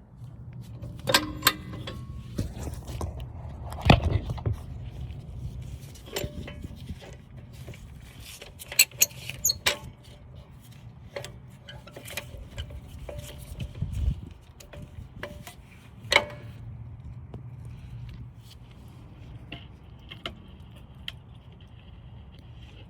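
Scattered metallic clinks, taps and knocks of a steel C-clamp and an old brake pad being handled and set against a rear disc-brake caliper to press its piston back. There is a steady low hum underneath and a couple of duller thuds.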